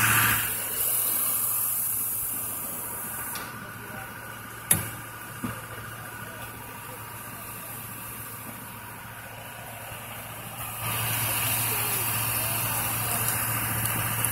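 Truck engine idling with a steady low hum, under a hiss that drops away about three seconds in and comes back louder about eleven seconds in. A single sharp click sounds about five seconds in.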